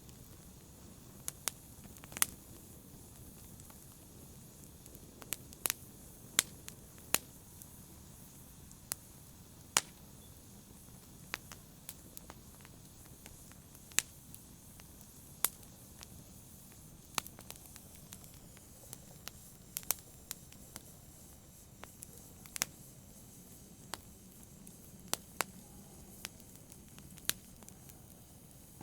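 Wood fire crackling: sharp, irregular pops and snaps, roughly one a second, over a low steady hiss of burning.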